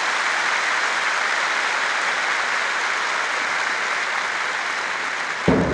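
A large arena crowd applauding steadily. About five and a half seconds in, a louder, lower sound breaks in and the applause begins to fade.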